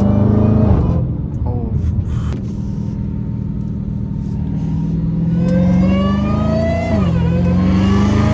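Supercharged 6.2-litre Hemi V8 of a Dodge Charger Hellcat Redeye with an aftermarket cold air intake, heard from inside the cabin. It eases off about a second in and runs steadily, then from about five seconds goes to full throttle, with a supercharger whine that climbs in pitch. Near seven seconds there is a quick drop in revs at an upshift, and then it climbs again in a third-gear pull.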